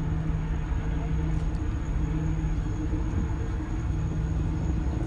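Ferry engines droning steadily: an even low hum with a constant tone running through it.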